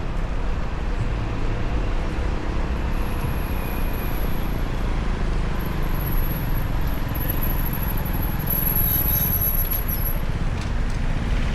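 Town street ambience: a steady low rumble of road traffic, with a faint thin high-pitched whine from about three seconds in until near the end.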